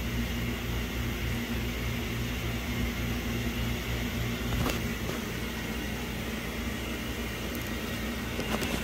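Steady low machine hum, with a faint click about halfway through and a few more near the end.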